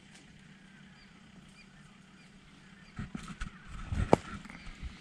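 Faint bird chirps over a low steady hum, then a few seconds of knocks and rustling with one sharp thump about four seconds in.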